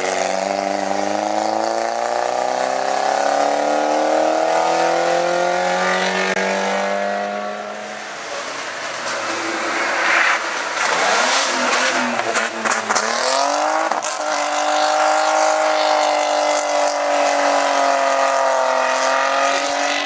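Hillclimb race cars under hard acceleration. A Peugeot 106's engine revs higher and higher as it pulls away up the hill. Then a Mercedes W124 saloon's engine dips and climbs several times through gear changes in the bend before holding high revs.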